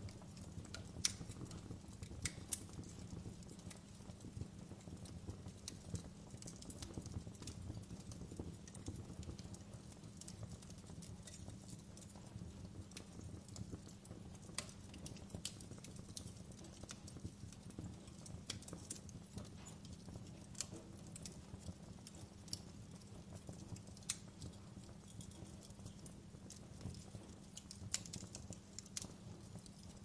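Log fire burning in a fireplace, crackling: irregular snaps and pops, a few of them louder, over a steady low background.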